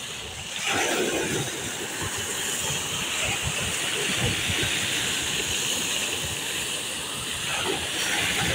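Sea surf: waves breaking and washing up the shore as a steady rushing hiss. One wave crashes about a second in and another surges in near the end.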